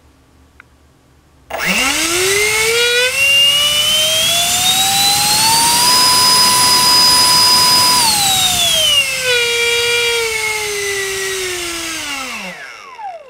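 64 mm electric ducted fan (Haoye housing, five-blade rotor) driven by a GoolRC 2948 4800kv brushless inrunner on a 4S battery, run up on a thrust stand. Its whine starts suddenly about a second and a half in, climbs steadily in pitch to full throttle, holds there for about two seconds at roughly 55 amps, then drops back and winds down to a stop near the end.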